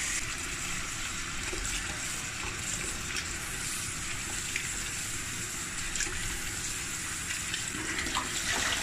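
Kitchen tap running steadily into a stainless steel bowl of sea moss, with small splashes as a hand swishes the moss through the water to wash the salt out.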